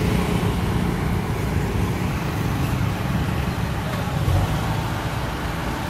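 Heavy diesel vehicle engine running steadily at idle, a low even rumble, over street traffic noise.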